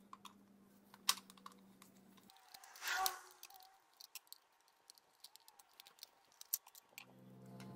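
Faint scattered clicks and light handling noise from a gloved hand working around an outboard motor's powerhead, with a louder rustle about three seconds in.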